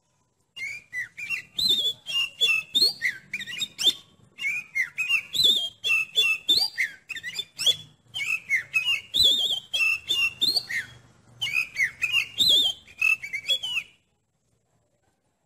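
Oriental magpie-robin (kacer) singing: fast runs of varied, sliding whistled notes in phrases a few seconds long with brief pauses between, stopping abruptly near the end.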